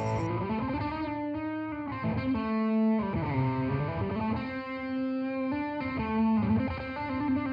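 Electric guitar playing a lead solo through a distortion pedal alone, its overdrive pedal switched off: sustained distorted single notes, several bent or slid up and down in pitch.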